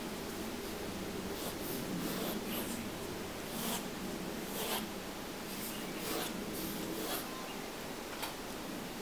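Pointed steel dip-pen nib (Leonardt Principal) scratching across paper in a series of short strokes, over a steady low background hum.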